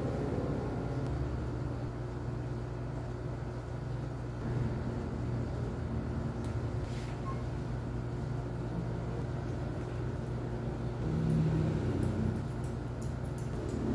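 A steady low mechanical hum throughout. Near the end, a quick run of light snips from barber's scissors trimming hair.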